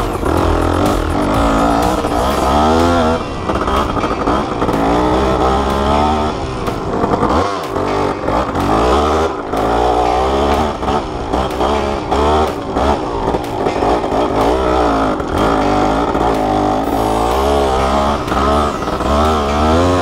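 Motorcycle engine running under way, its pitch rising and falling several times as the throttle is opened and eased off.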